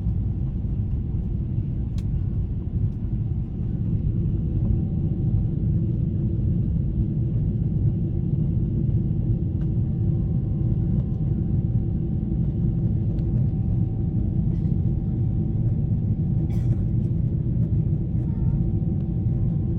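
Steady low rumble of a Boeing 777-300ER's passenger cabin in flight: jet engine and airflow noise, with a faint steady tone above it. It grows a little louder about three and a half seconds in.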